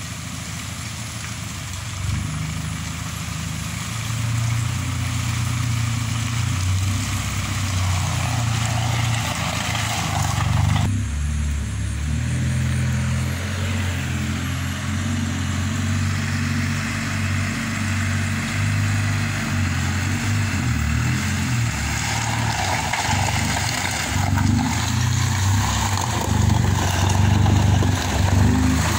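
A vehicle engine running under load, its pitch stepping up and down as it climbs a slippery track. It grows louder over the first few seconds and then runs steadily.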